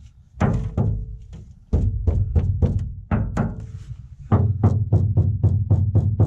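A fist knocking repeatedly on the bare sheet-steel door panel of a VW T4 van, each blow booming as the panel drums. The knocks come in groups, then a fast run of about four a second in the second half. This drumming comes from the panel having no sound-deadening mat, and it is the road noise the panel makes when the van is moving.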